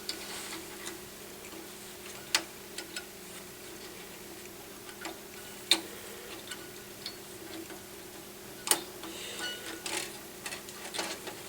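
Light, irregular clicks and taps of a short piece of harp string being poked into a small hole in a wooden harp sound box, three of them louder and a few seconds apart, over a faint steady hum.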